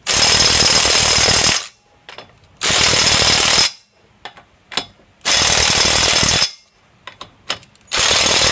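Cordless impact driver with a socket running wheel lug nuts tight in four bursts of about a second and a half each. Short clicks of the socket and nuts come in the gaps between bursts.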